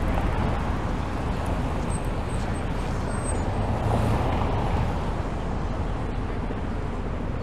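Busy city street traffic: vehicles and tyres running steadily.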